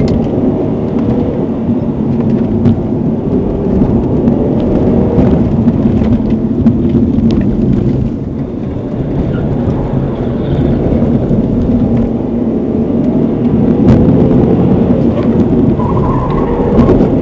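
Subaru Legacy BM's boxer engine pulling hard on a track lap, heard from inside the cabin through a dashcam microphone as a dense rumble. It rises and falls with acceleration and lifting, easing off about eight seconds in before building again.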